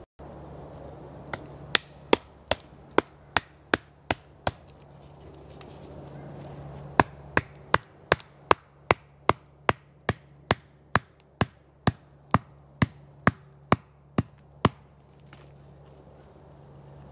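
A hatchet striking the top of a wooden stake again and again, driving it into the ground, in two runs of steady blows about two and a half a second: a short run of about eight, a pause, then about twenty more.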